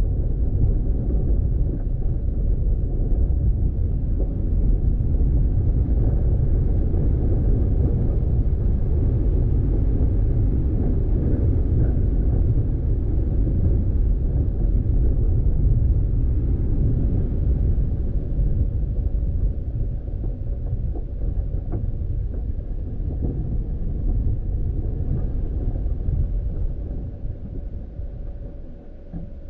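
Car driving on a dirt road: a steady low rumble of engine and tyres, which grows quieter near the end.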